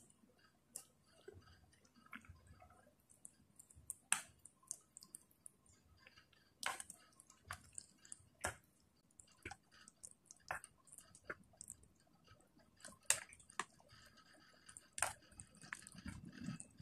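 Chopsticks clicking and scraping against an electric hot pot while stirring noodles in broth, with soft wet squishes; the clicks are irregular, a few louder ones every second or two. A low rumble comes in near the end.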